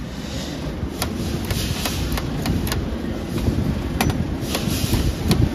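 A string of sharp metallic clicks and knocks from a bouncy-ball vending machine's chrome coin mechanism being handled, irregular and about ten in all, over a steady low background rumble.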